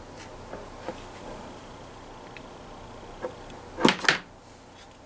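Two sharp knocks in quick succession a little before four seconds in, with a few faint ticks before them, over a faint steady hum.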